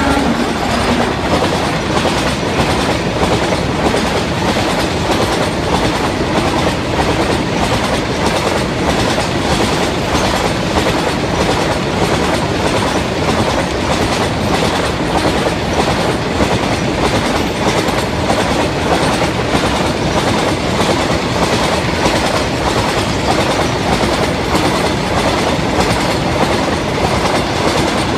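BTPN cylindrical fuel tank wagons of a freight train running past, their wheels giving a steady, rapid clickety-clack over the rail joints, with the rumble and rattle of the wagons going by.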